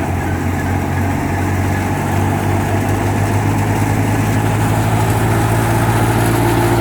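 Tractor-driven wheat thresher (Super Fine Daska model) running steadily: a continuous low engine hum under dense machine noise, growing slightly louder near the end.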